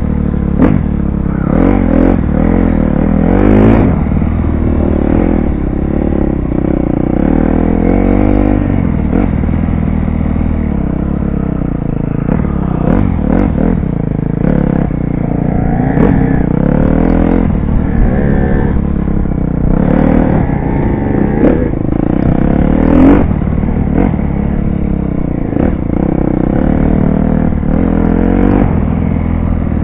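KTM dirt bike engine being ridden off-road, revving up and down as the throttle opens and closes, with clattering knocks from the bike over rough ground.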